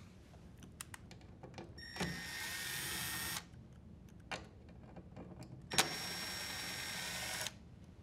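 Cordless drill-driver running twice, each for about a second and a half, backing out the two screws that hold a dryer door latch. A few small clicks come between the two runs.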